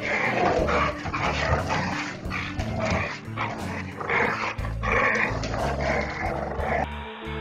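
Two dogs play-fighting, giving short rough growls and barks about twice a second; they stop near the end.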